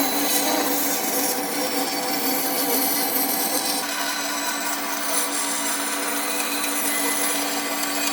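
An electric power tool running steadily against wood, a constant motor hum under a coarse rasping noise.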